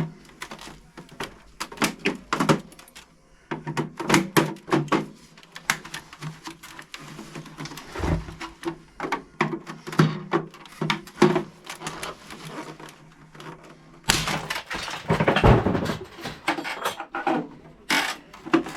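Plastic housing of an iMac G3 being pried and unclipped by hand: a run of clicks, knocks and thunks, with a louder spell of cracking plastic about fourteen seconds in.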